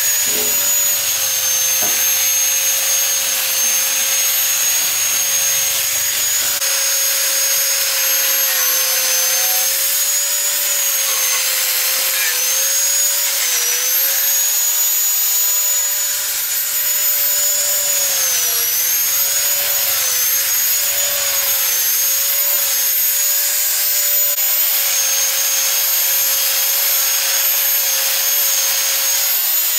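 Electric angle grinder with an abrasive disc running steadily as it grinds rust off steel. Its high whine sags in pitch briefly twice, around 13 and 18 seconds in, as the disc is pressed harder into the metal.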